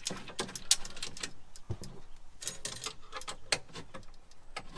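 Irregular metallic clicks and clinks of screws, washers and bracket hardware being handled.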